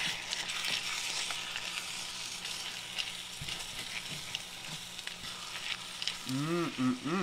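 Gravy, beef and frozen peas and corn sizzling in a hot number 8 cast iron skillet, stirred with a wooden spatula. The spatula scrapes and taps against the pan now and then.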